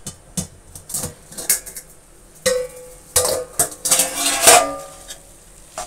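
Metal cookware clattering: an upturned steel bowl used as a lid is lifted off a metal kadai with tongs, clinking, then a metal spatula scrapes and knocks against the kadai while stirring the mutton. The clashes in the second half ring, and the loudest comes near the end.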